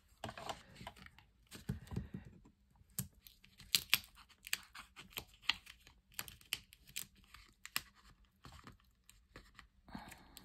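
Hands handling paper scrapbook embellishments: soft rustling with scattered small clicks and taps as a paper piece is fitted and pressed onto the page.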